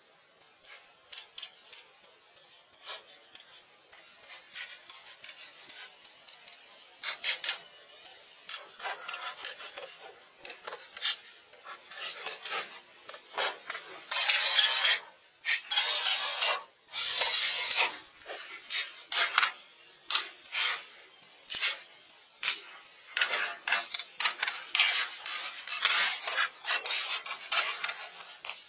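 Irregular rasping, scraping strokes against a hard surface, like filing or sanding, sparse at first and then coming thicker, some drawn out for about a second.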